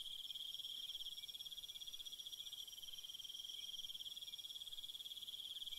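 Night insects trilling: a steady, high, fast-pulsing trill, with a fainter, higher trill above it.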